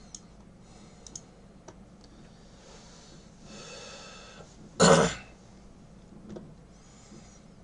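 A man clears his throat once, loudly, about five seconds in, just after a breath. A few faint clicks come before and after it.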